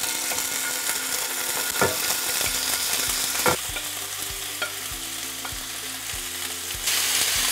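Raw chicken breast pieces sizzling in hot oil in a cast-iron skillet as they are slid in from a plate with a spatula, with a few short knocks of the spatula against the plate and pan.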